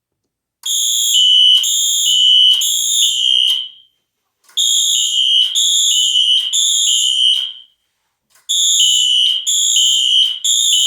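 Fire alarm horns, a Siemens ZH-MCR and a Wheelock ZNS, sounding the temporal-three evacuation pattern: three rounds of three loud pulses, each round followed by a pause. The horns are not synchronised, so their pulses overlap slightly out of step.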